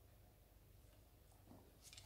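Near silence: faint room tone with a low steady hum, and a brief faint rustle near the end.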